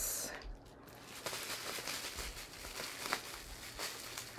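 Rustling and handling noise of packaging being unwrapped by hand, with a couple of small clicks.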